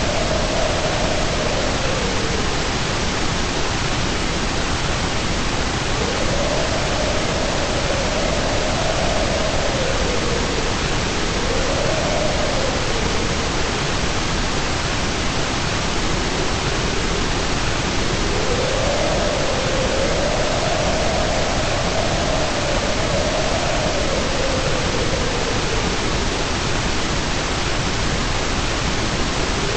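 Steady, loud white noise, an even hiss, with a faint lower tone inside it that slowly rises and falls every few seconds.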